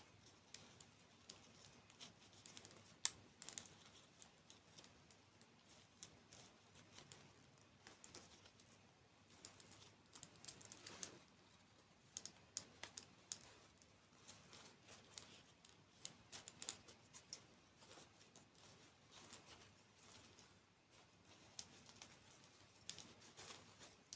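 Close-miked eating of desserts and candy: a run of crisp, irregular crunches and clicks, with a sharper snap about three seconds in.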